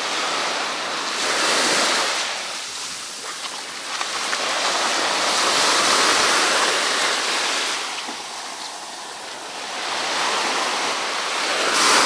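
Sea waves breaking and washing up a sandy beach, the surf swelling and fading in slow surges about every four seconds.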